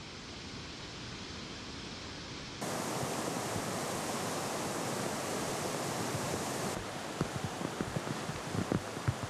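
Steady rushing noise of muddy floodwater in torrential rain. It steps up louder about two and a half seconds in and changes again near seven seconds, after which scattered sharp ticks come through the rush.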